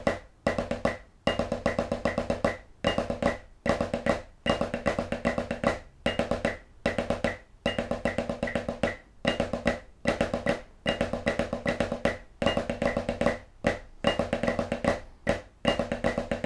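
Snare drum played with sticks, running Swiss Army triplets (a flam-led triplet rudiment) at quarter note = 150 in steady, evenly grouped strokes, over a metronome click.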